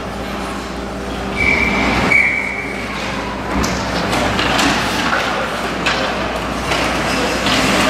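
Youth ice hockey play in an indoor rink: a steady rink noise with skates scraping on the ice and sticks clacking as play restarts from a faceoff. One high steady tone, like a whistle, lasts about a second, a little over a second in.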